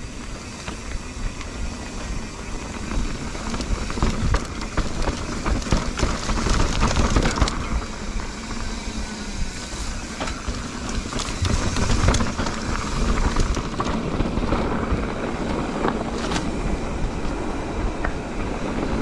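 Mountain bike riding down a dirt trail: tyres rumbling and crunching over the ground, with frequent rattling knocks from the bike as it hits bumps.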